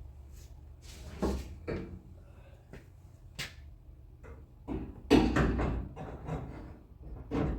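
Car door latch being adjusted and tried: a series of metal clicks and clunks, loudest about five seconds in.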